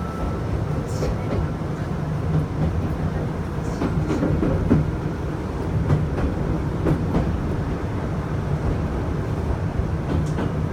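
Chichibu Railway electric train running, heard from inside the front car: a steady low rumble with a few clacks of the wheels over rail joints.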